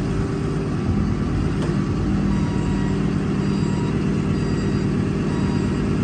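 6.7 Cummins diesel engine of a Ford forestry truck running steadily, driving the hydraulic hoist that tips the chip dump body up.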